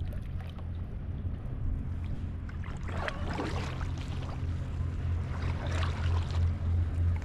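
Kayak paddle blades dipping and splashing in sea water, two strokes about three seconds and six seconds in, over a steady low hum.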